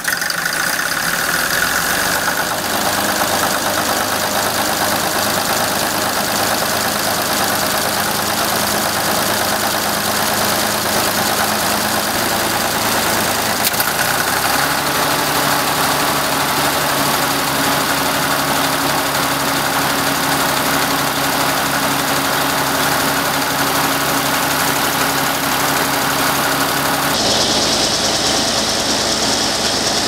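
International UD18 gas-diesel engine catching at the start and then running steadily. About fourteen seconds in, its note changes and settles again at a new steady pitch.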